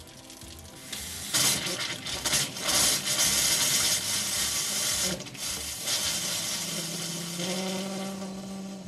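RV kitchen faucet running and spitting in uneven surges as trapped air is purged from the freshly refilled water lines, then tapering off over the last few seconds. Background music plays underneath.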